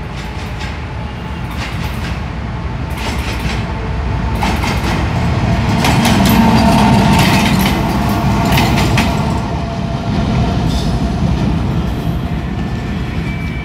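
Pakistan Railways diesel-electric locomotive running light, with no train behind it, approaching and passing close by: a low engine rumble with a steady whine and wheels clicking over rail joints. It is loudest about six to nine seconds in, then fades.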